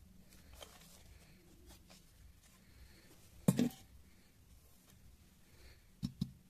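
Objects being handled and set down on a table: one loud knock about halfway through, then two quick knocks near the end.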